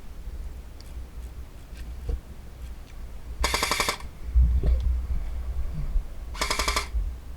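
Airsoft gun firing two short full-auto bursts of rapid, evenly spaced clicks, about three seconds apart. A low rumble comes between them.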